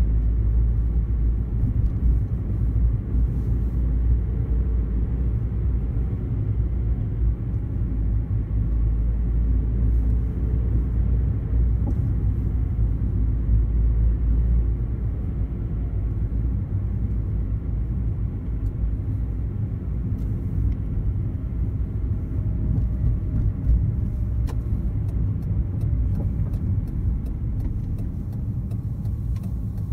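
Steady low rumble of a car's engine and tyres on the road, heard from inside the car while driving at city speed.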